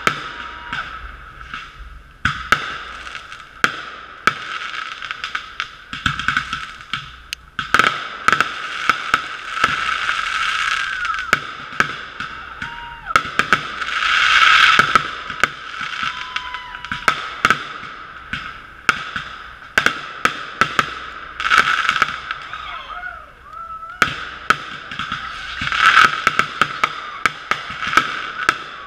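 Fireworks going off in quick succession: a rapid string of sharp bangs over dense crackling from aerial bursts, with several louder swells. The sound is muffled, recorded through a GoPro's sealed waterproof housing.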